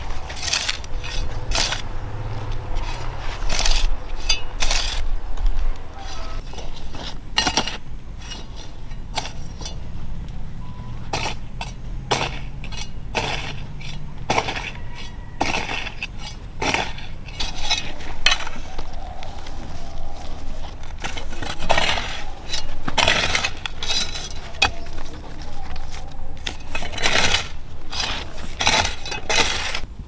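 Irregular series of sharp clinks and knocks, like hard objects or metal tools striking one another, over a low steady hum.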